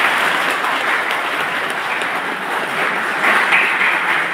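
Audience applauding: steady, dense clapping with no pause.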